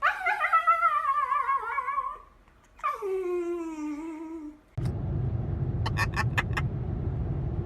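A cat gives two long, drawn-out yowling meows, each wavering and sliding down in pitch. Nearly five seconds in the sound cuts abruptly to a steady low rumble, with a quick run of sharp clicks shortly after.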